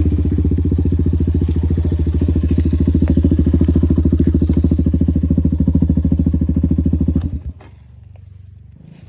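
Motorcycle engine running steadily with an even low pulse, then cutting off abruptly about seven and a half seconds in.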